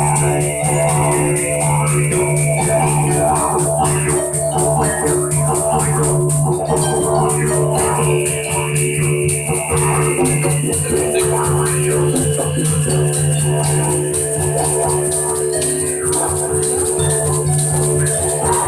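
Didgeridoo playing a steady low drone, with a higher overtone that swells in and out, over a fast, even rattling rhythm.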